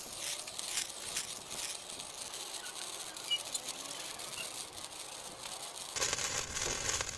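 A large 100 cm colour sparkler burning with a fizzing hiss and scattered crackles. About six seconds in, the sound changes abruptly to a steadier, more even hiss.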